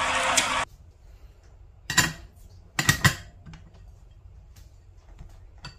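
Sharp metallic clicks and clacks of a replica championship belt's metal side plates being handled: one about two seconds in and a quick cluster about a second later, with faint ticks between. Under a second in, a burst of background commentary and music cuts off.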